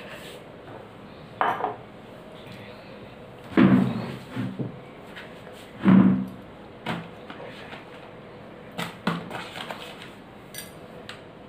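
A woman's short, wordless vocal sounds: two loud ones about three and a half and six seconds in, and smaller ones between. A few light clicks and knocks come near the end.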